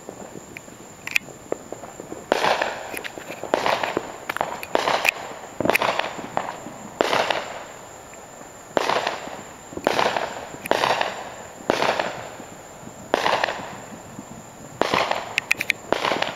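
Fireworks going off: a few sharp small pops, then a rapid run of about a dozen bangs roughly a second apart, each with a short echoing tail, and another cluster of crackling pops near the end.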